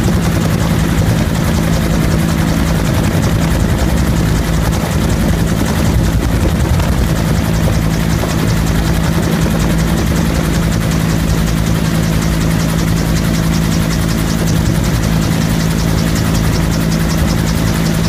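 Bell UH-1 Huey helicopter in steady flight, heard from on board: its turbine engine and two-blade main rotor make a loud, unbroken drone with a steady low hum.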